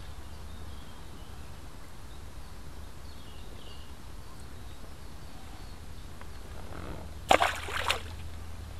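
Quiet outdoor ambience by a pond with a steady low hum and faint bird chirps, then a sudden loud noise lasting under a second about seven seconds in.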